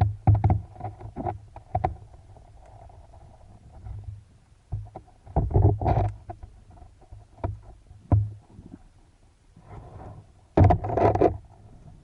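Water splashing and sloshing around a spearfisher at sea, in irregular clusters of knocks and splashes, loudest at the start, about halfway and near the end.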